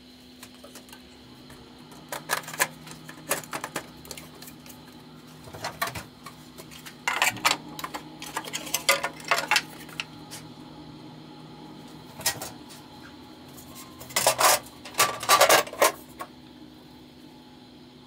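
Cooling shroud and sheet-metal top cover being fitted onto a Dell PowerEdge R710 server chassis: irregular clicks, knocks and scrapes of plastic and metal, heaviest about seven to nine seconds in and again near the end, over a steady faint hum.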